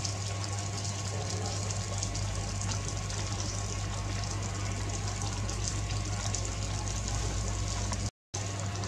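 Steady rushing background noise with a constant low hum underneath; it cuts out completely for a moment near the end.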